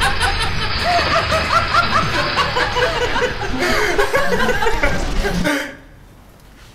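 A man and a woman laughing loudly together in quick, overlapping bursts. The laughter cuts off suddenly near the end.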